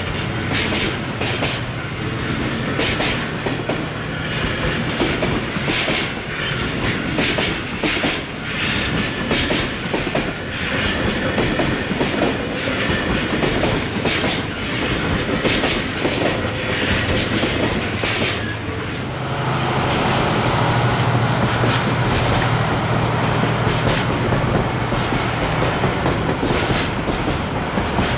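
Long freight train rolling past, its wagon wheels clattering in an irregular clickety-clack over the rail joints. About two-thirds of the way through, the clatter eases into a steadier low hum.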